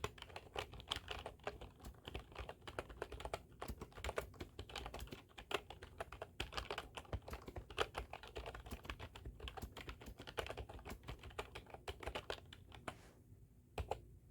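Computer keyboard typing: a fast, irregular stream of key clicks that stops about a second before the end, leaving one last keystroke.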